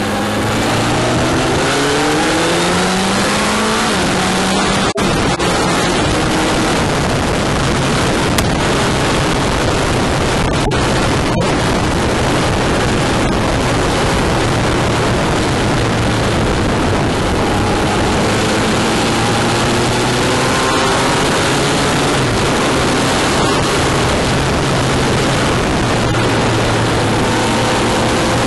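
Honda CBF1000GT inline-four motorcycle on the move: the engine climbs in pitch through the revs over the first few seconds, then runs steadily under a constant rush of wind and tyre noise.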